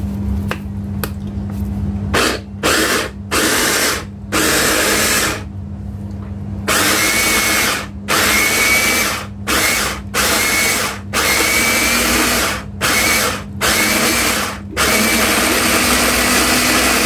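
Electric food chopper, a motor unit on a clear chopper bowl, whirring in about a dozen short on-off bursts as it chops green chillies, coriander, tomato and onion into a green masala.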